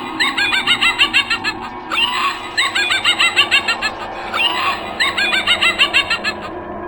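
Rapid squawking animal-like calls in quick runs of rising-and-falling notes. The same phrase repeats three times, about two seconds apart, over a steady hum.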